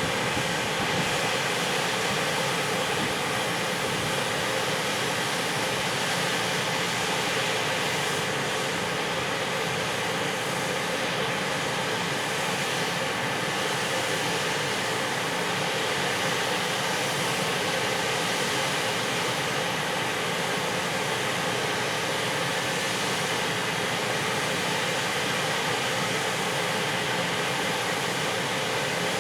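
A freight train hauled by an EF510 electric locomotive, giving a steady rush of noise with a faint, steady hum and no distinct clanks or changes.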